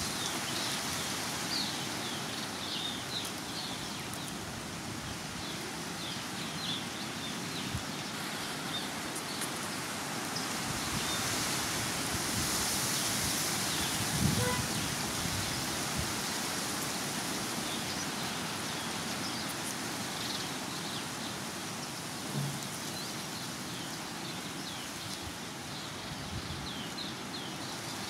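Small garden birds chirping, short high chirps coming thick in the first half and scattered later, over a steady outdoor hiss. A single low bump about halfway through.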